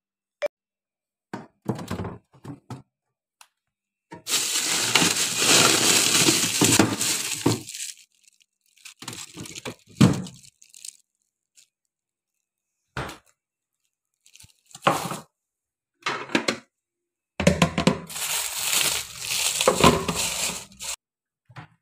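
Thin plastic bag crinkling and rustling as raw chicken is handled inside it. It comes in bursts, two of them lasting a few seconds each, with short knocks and clinks in between.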